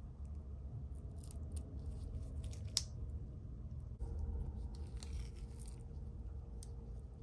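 Small clicks and scrapes of tools and small parts being handled while an iPod Classic is taken apart, with a sharp click near three seconds in and a longer scrape around five seconds in, over a steady low hum.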